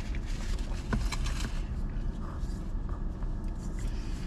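Steady low hum inside a car's cabin, with a few faint rustles and clicks of cups and straws being handled about a second in.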